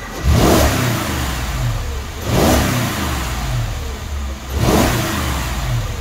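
Mercedes-Benz ML550's 5.5-litre V8 running and revved three times, about two seconds apart, each quick blip of the throttle rising and falling back to idle.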